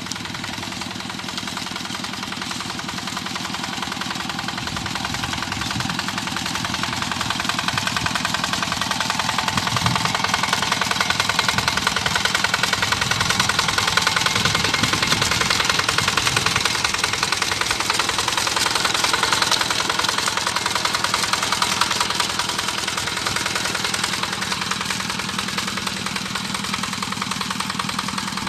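Tractor engine running steadily under load while plowing a rice paddy, with a fast, even chugging beat. It grows louder toward the middle and eases off a little near the end.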